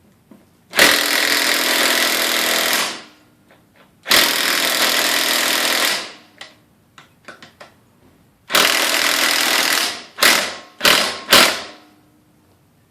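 Goodyear 24V cordless 1/2-inch impact wrench hammering on a wheel's lug nuts: three runs of about two seconds, then three short bursts near the end, without breaking the nuts loose.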